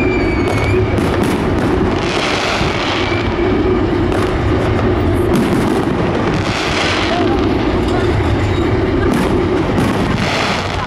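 Aerial firework shells bursting one after another in a dense, loud barrage, with crackling and several stronger bursts every few seconds.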